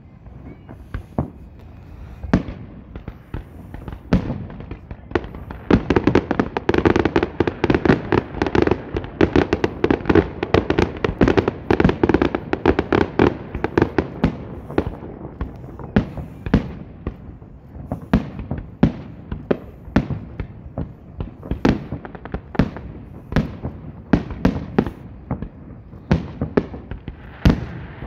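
Aerial fireworks bursting overhead. After a few scattered bangs, a dense barrage of rapid explosions begins about five seconds in and runs to about fourteen seconds. After that come separate bangs about a second apart.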